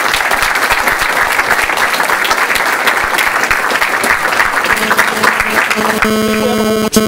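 An audience applauding, many people clapping at once. About six seconds in, the clapping gives way to a steady buzz.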